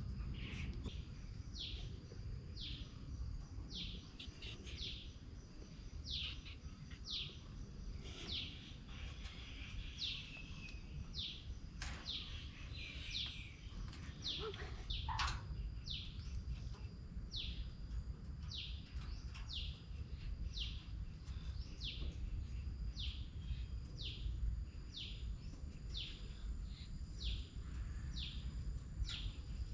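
A bird calling over and over with short, high, falling chirps, a little more than one a second, over a steady low rumble of outdoor background noise.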